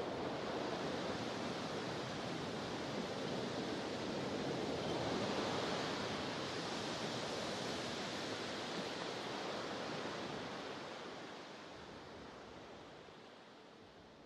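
Sea waves washing at a harbour pier, a steady rushing wash that swells a little midway and fades away over the last few seconds.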